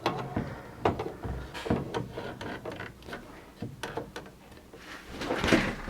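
The case of an Anan 200D transceiver being slid back by hand: a series of light clicks and knocks, then a louder scraping slide near the end.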